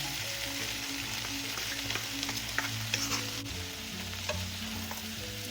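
Sliced banana blossoms sizzling in rendered pork fat as they are stirred in the pan. A few sharp clicks of the utensil against the pan come through the steady sizzle.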